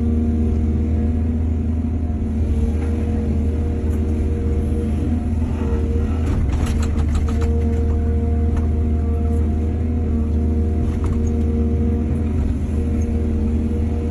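Excavator's diesel engine running steadily with a deep rumble, and a quick cluster of clanks and rattles about six to seven seconds in.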